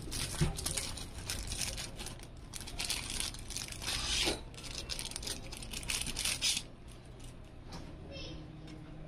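Thin clear plastic packaging bag crinkling and tearing as a Wi-Fi antenna is pulled out of it by hand; the crinkling stops about two-thirds of the way through.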